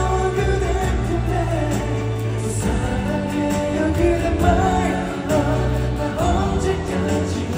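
Live pop ballad through a concert sound system: a singing voice over band accompaniment with held bass notes and sustained chords.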